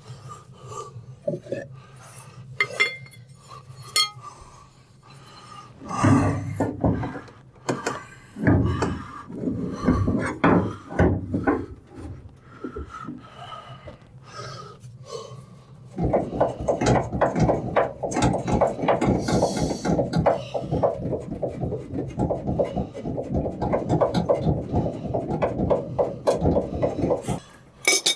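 Hand tools and metal parts clinking and knocking at the base of a front-loading washer while its leveling feet are worked on. A little past halfway, a steady run of rapid scraping clicks starts and lasts about eleven seconds.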